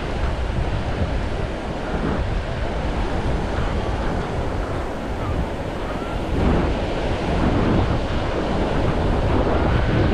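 Sea waves washing onto a beach, with wind buffeting the microphone as a low rumble; the surf swells louder about six and a half seconds in.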